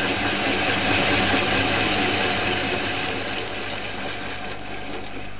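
Hole saw cutting into metal: a steady grinding, chattering noise of the teeth biting the metal over the low hum of the drill driving it, easing slightly toward the end.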